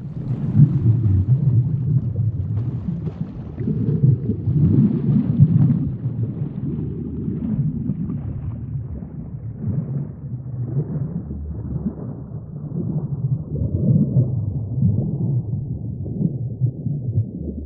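Sea ambience: a low rumbling with slow swells in loudness, growing more muffled toward the end.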